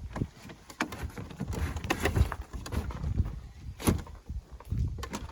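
A few sharp knocks and clunks, with low bumping underneath, as a wooden door is lifted out of its framed opening and handled.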